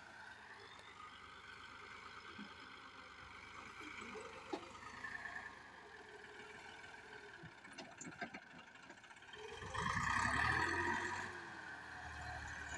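Massey Ferguson 260 tractor's diesel engine running steadily as it pulls a potato planter. A few short knocks come through from the planter, and a louder rush of noise rises about ten seconds in.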